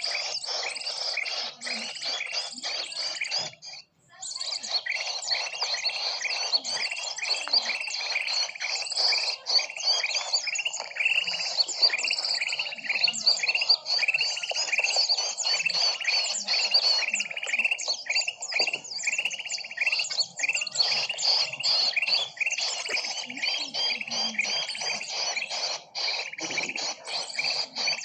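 A dense chorus of many small birds chirping rapidly, a recorded bird-lure call meant to draw small birds in. The chirping drops out for a moment about four seconds in, then carries on.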